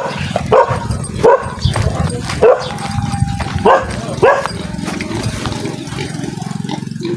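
A dog barking repeatedly, a short sharp bark every half second to second, stopping about four and a half seconds in. A steady low drone runs underneath and is left on its own near the end.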